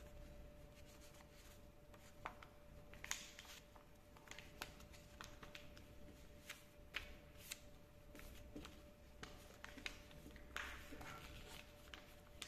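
Faint crinkles and rustles of a sheet of paper being folded and creased by hand, with scattered sharp ticks and a longer rustle near the end.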